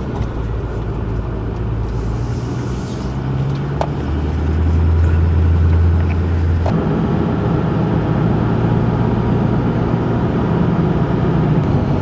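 Pickup truck driving, heard from inside the cab: steady engine hum with road and cabin noise. The engine's low note grows stronger a few seconds in and changes abruptly a little past halfway.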